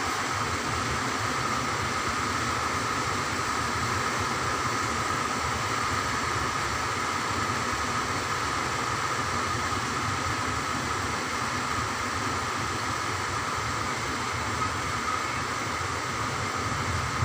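Steady mechanical hum and hiss at an unchanging level, with a constant mid-pitched tone running through it.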